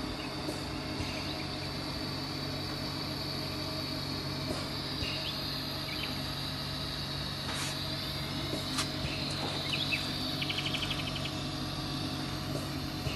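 A hydro-oxygen 'bubble' facial beauty machine running: a steady hum from its pump with a thin high whine above it. A few scattered clicks, and a short fast rattle of ticks about ten seconds in.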